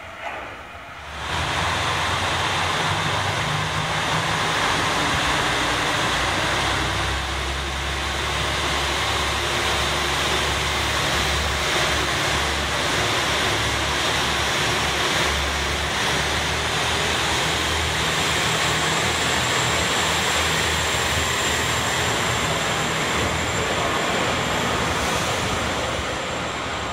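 JR Shikoku 2000 series diesel limited-express train pulling out and accelerating past at close range: a loud, steady mix of diesel engine drone and wheel-on-rail running noise. It starts about a second in, after a short quieter stretch.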